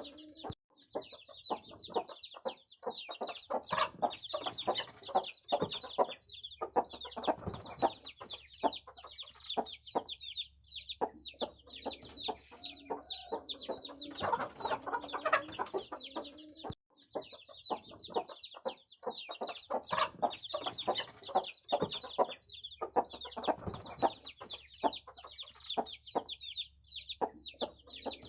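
Aseel chicks peeping continuously, a dense stream of short, high, falling chirps, with lower calls and sharp clicks now and then.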